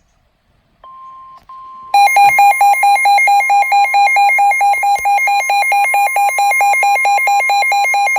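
Weather radio sounding a warning alert: a steady high alarm tone comes on about a second in, and about two seconds in a loud, rapid electronic beeping starts over it and keeps going. It is the attention alarm that comes before a severe thunderstorm warning is read out.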